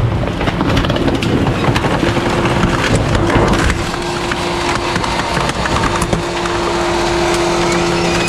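Rear-loader garbage truck's hydraulic packer crushing trash in the hopper, with many sharp cracks and snaps as the load breaks up. A steady whine comes in about two seconds in and holds, over the truck's low running rumble.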